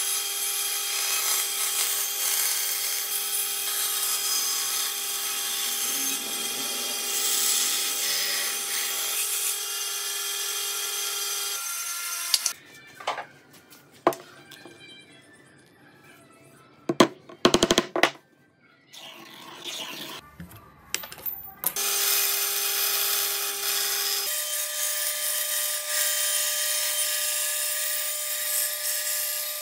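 Band saw running and cutting through a hardwood board, a steady whine with a hiss. About twelve seconds in it gives way to quieter handling, with a few sharp knocks and clicks. About eight seconds before the end the saw runs again, cutting a curve in another board with a slightly different pitch.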